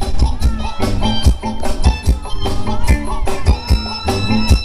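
Live band playing Thai ramwong dance music through a PA, with a steady quick drum beat under a melody. A held high melody line comes in near the end.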